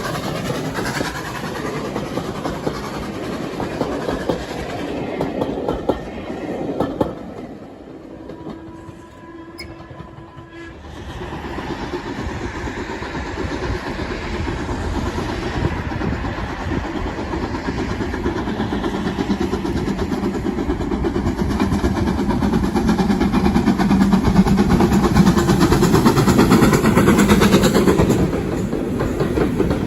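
Steam train running past, its carriage wheels clattering over the rail joints. It drops quieter for a few seconds about a third of the way in, then builds louder as the train comes closer toward the end.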